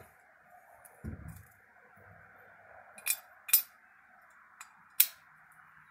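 Sharp clicks and clinks of metal cylinder-head parts and a valve spring being handled on a workbench: a dull knock about a second in, then four short clicks between three and five seconds in, two of them loud. A faint steady hum underneath.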